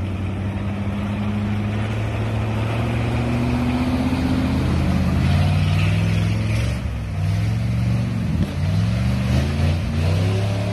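Jeep engine running on an off-road trail, its pitch climbing slowly and then dropping and rising again several times in the second half as the throttle is worked.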